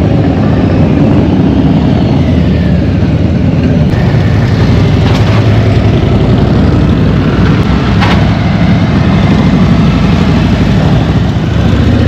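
Harley-Davidson V-twin motorcycle engine running under way, loud and low, its pitch slowly rising and falling with the throttle.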